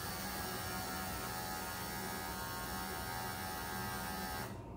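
Electric pet grooming clippers running with a steady hum, switched off near the end.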